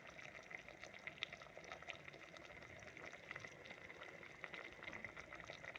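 Thick tamarind chutney simmering in a pot, faint irregular popping of bubbles breaking on the surface: bubbles appearing is the sign that the chutney has cooked down and is nearly done.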